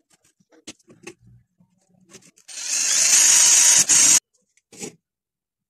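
Cordless drill running for just under two seconds, boring through a DVD disc laid on a plastic container. It is preceded by a few faint clicks and scrapes.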